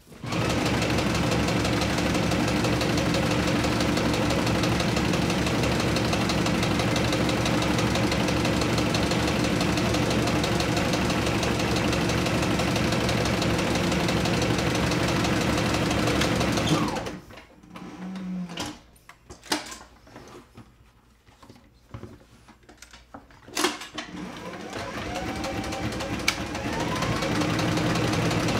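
Sewing machine stitching leather, running steadily at a fast, even stitch rhythm for about seventeen seconds, then stopping abruptly. A quieter spell of scattered clicks and knocks follows as the work is handled, and then the machine starts again and picks up speed near the end.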